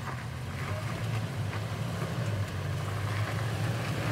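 Toyota Tacoma pickup's engine running steadily at low revs as the truck crawls over rock ledges, growing slightly louder as it comes closer.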